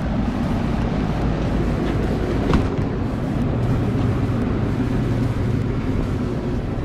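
A steady low mechanical drone, with a single sharp click about two and a half seconds in.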